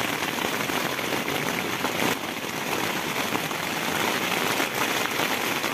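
Heavy rain pouring steadily on a camping tent, a dense patter of drops.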